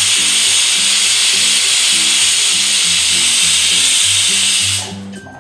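Prestige pressure cooker whistling: a loud, steady hiss of steam escaping past the lifted whistle weight, the sign that the dal inside has come up to pressure. The hiss cuts off suddenly near the end as the weight drops back.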